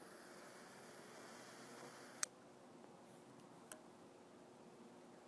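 Butane torch lighter's jet flame hissing faintly while lighting a cigar, cut off with a sharp click after about two seconds; another small click follows a second and a half later.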